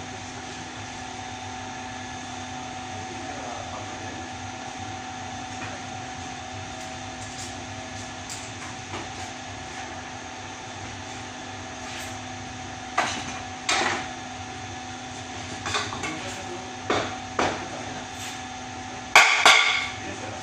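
A steady machine hum holding one low and one middle tone, joined about two-thirds in by a few sharp knocks and clatters of hard objects being handled, the loudest a bang about a second before the end.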